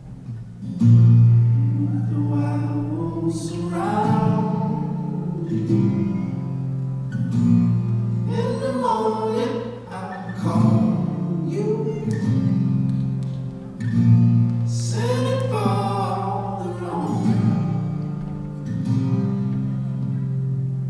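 A song with a voice singing in phrases of a few seconds over sustained low notes.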